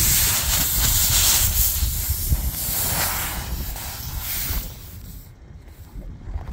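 Air hissing out of a punctured semi truck tire around the plug insertion tool as a rubber plug is forced into the hole, over wind rumbling on the microphone. The hiss drops away about five seconds in.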